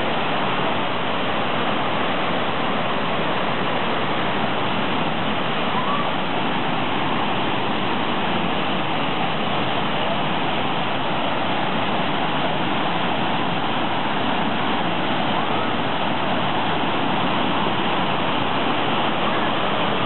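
Waterfall cascades pouring into pools: a steady, even rush of falling water.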